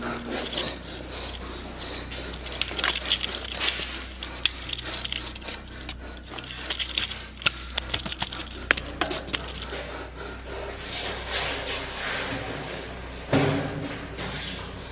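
Rustling, scraping and scattered clicks of a backpack and camera gear being handled. A sudden louder bump comes near the end.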